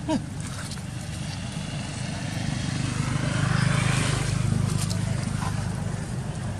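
A motorbike passes on the road, its engine growing louder to a peak about four seconds in and then fading away. Right at the start, a brief squeal that rises and falls in pitch, from a baby macaque.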